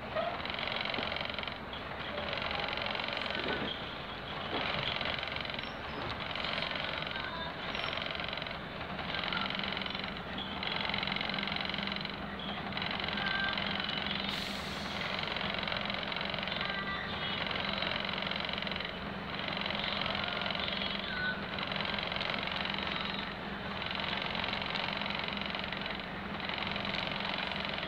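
Class 121 railcar's diesel engine running, heard from inside the passenger saloon, as the railcar slows to a stand. A steady low hum sets in about nine seconds in, and a short hiss comes near the middle.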